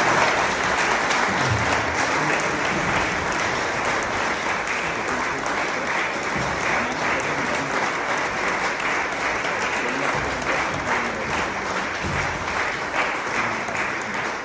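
Audience applauding: many hands clapping steadily, easing off slightly toward the end.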